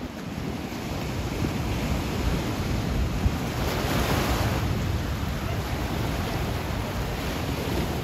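Ocean surf breaking against rock ledges, with one bigger wave crashing about four seconds in. Wind buffets the microphone.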